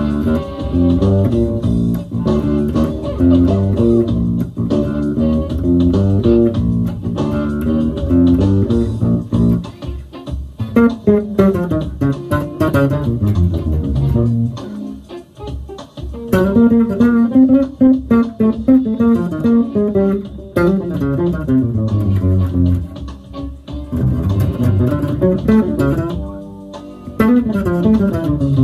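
Unaccompanied Fender Jazz Bass played fingerstyle through a bass amp: a funky single-note line mixed with double stops and chords, with a brief pause about fifteen seconds in.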